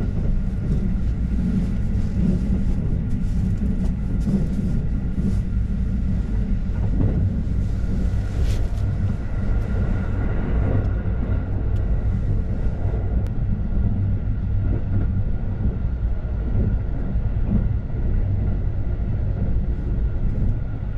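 Steady low rumble of the 285-series Sunrise Seto sleeper train running, heard from inside a berth, with a faint steady hum above it. A few soft rustles of bedding come in the first half.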